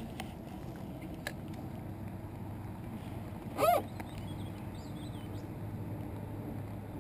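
Electric trolling motor humming steadily at low speed, with a couple of small clicks from the rod and reel. About halfway through comes a brief, loud, wavering call, followed by faint high bird chirps.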